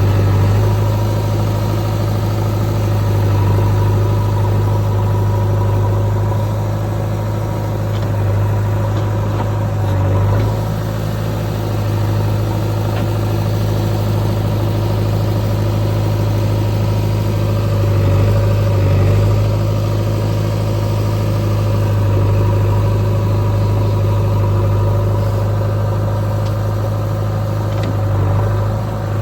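Heavy diesel engine running steadily at idle with a strong low hum. Its note wavers briefly a few times.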